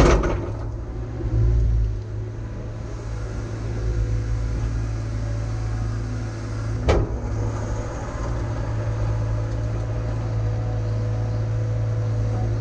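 Diesel engine of a heavy earthmoving machine running steadily under work, with a sharp metallic clank right at the start and another about seven seconds in.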